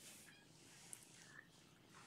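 Faint, short, high-pitched mews from young kittens, twice, over quiet room noise.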